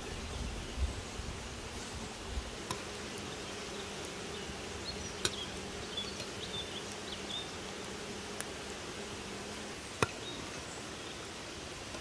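A flying insect buzzing steadily close by, the hum stopping shortly before the end. A few sharp clicks break in, the loudest about ten seconds in.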